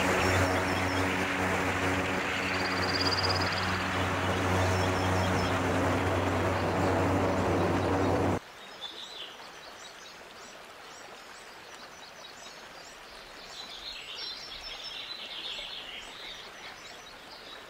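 Airboat engine and propeller running steadily, then cutting off suddenly about eight seconds in. What follows is a much quieter marsh background with many brief high bird chirps.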